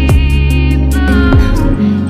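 Background music: an electronic pop song with a steady deep bass and chords, with two falling bass drops; the bass cuts out near the end.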